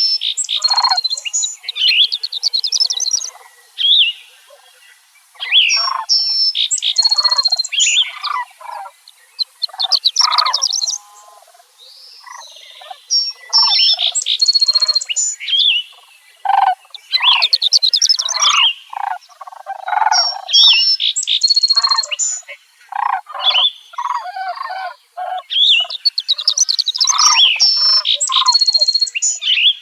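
A songbird singing long, varied phrases again and again, a few seconds apart, each mixing fast high trills with lower rough chattering notes.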